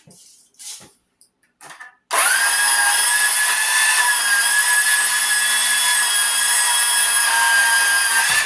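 A few light handling knocks, then a power tool's motor starts about two seconds in and runs steadily at a constant high whine for about six seconds while copper wire is stripped, before stopping abruptly near the end.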